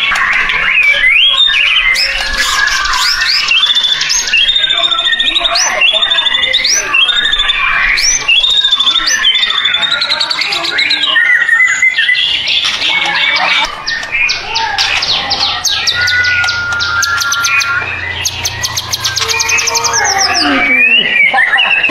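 White-rumped shama (murai batu) singing without pause: a varied song of rising whistled notes, fast trills and short chattering phrases, with one long steady whistle about three-quarters of the way through.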